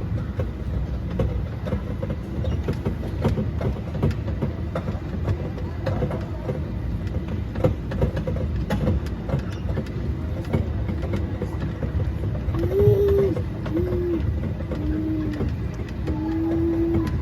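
Mall ride-on passenger train running, a steady low rumble with frequent rattling clicks and knocks from the carriages. Near the end a few short steady tones sound over it.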